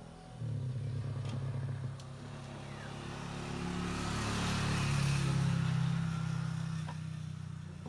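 A motor vehicle passing close by: its engine hum comes in suddenly about half a second in, grows louder to a peak about five seconds in, then fades away.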